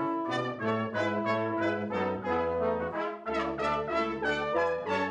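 A small brass ensemble of trumpets and a tuba plays a piece, with melody notes moving above a held tuba bass line.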